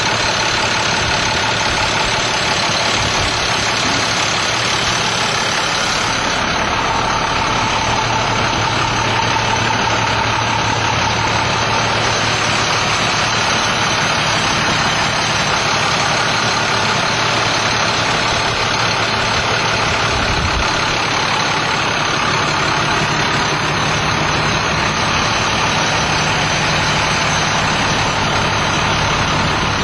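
2006 International truck's diesel engine idling steadily.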